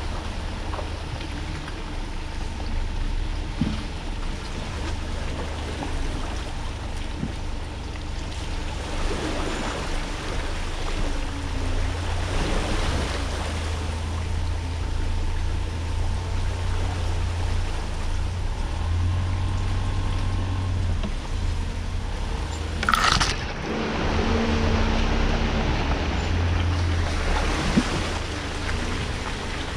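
Off-road vehicle driving on a rough trail: a steady low engine rumble under road and wind noise, with a few faint knocks and one sharp, brief scraping burst about three-quarters of the way through.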